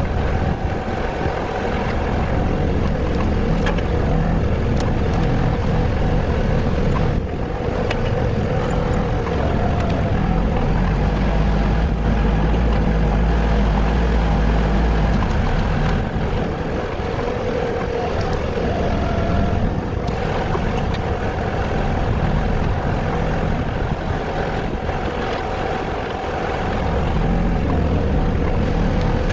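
An engine running steadily, a constant drone with small rises and falls in level.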